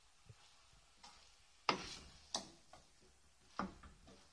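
Wooden spatula knocking and scraping against an aluminium saucepan while stirring a thick meat sauce: about five sharp, irregularly spaced knocks, the loudest a little under two seconds in.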